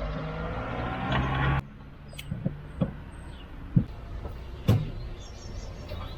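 A passing car's engine hum, falling slightly in pitch and cutting off abruptly about a second and a half in, followed by a few sharp knocks and clicks.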